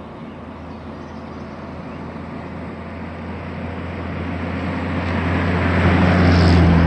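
A vehicle approaching: a low, steady engine hum and road noise growing steadily louder to a peak near the end, then starting to fade as it passes.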